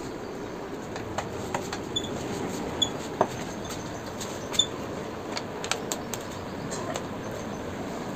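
Scattered light clicks and taps of an Allen key and screwdriver working the screws of a motorcycle's plastic fairing panel, over a steady background hiss. A few faint, short high-pitched chirps come around the middle.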